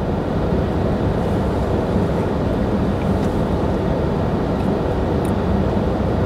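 Steady low drone of a car running, heard inside its cabin.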